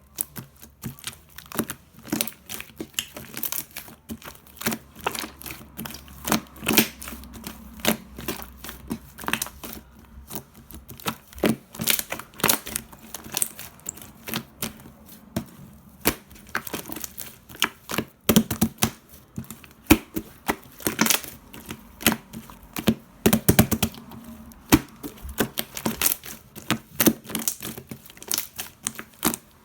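Two-layer slime being squeezed, stretched and poked by hand, giving dense, irregular clicking and crackling pops.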